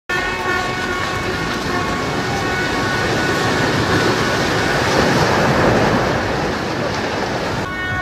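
A horn held down in one steady tone while a damaged multi-storey concrete building collapses: a dense rush and rumble of falling concrete and debris swells under the horn, loudest in the middle, and drops away abruptly near the end.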